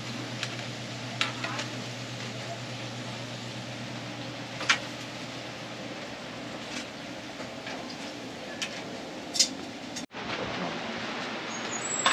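Oil sizzling steadily as fish cake hotteok fry on an oiled griddle pan, with sharp clicks of metal tongs now and then. The sound cuts out for a moment about ten seconds in, then the sizzling resumes.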